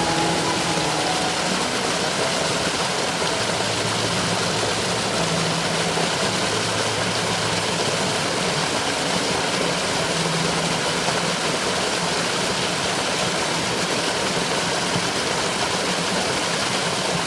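Mountain valley stream rushing steadily over rocks, with a faint low hum coming and going in the first half.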